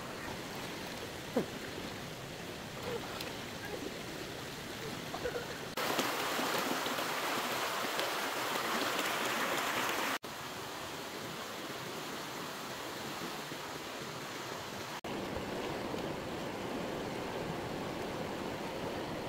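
Fast-flowing stream water rushing in a steady wash. It gets louder and brighter about six seconds in and changes abruptly again at about ten and fifteen seconds, as the shots cut.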